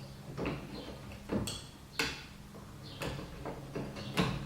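About five sharp, scattered clicks and knocks of a car's exterior door handle being pulled and worked into its housing, as it hooks onto the metal latch bar inside the door.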